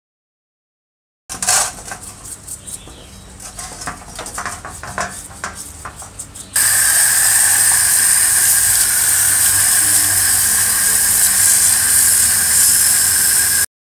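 A stiff brush scrubbing the old drill's greasy metal housings in a pan of cleaning liquid, in short irregular scraping strokes. About halfway it cuts to a pressure-washer jet spraying the parts, a loud steady hiss with a faint whine in it.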